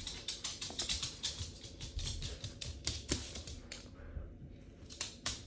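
A Cavalier King Charles Spaniel's claws clicking rapidly and irregularly on a hard floor as it trots. The clicks thin out about four seconds in, leaving a couple of single clicks near the end.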